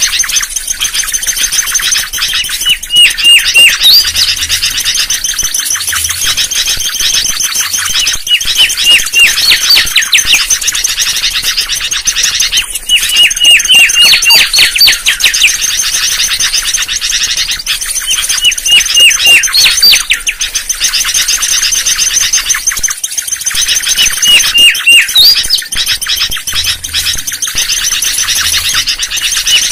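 Mangrove whistler singing: repeated phrases of several quick, clear whistled notes, about one phrase every five seconds, over a steady high hiss.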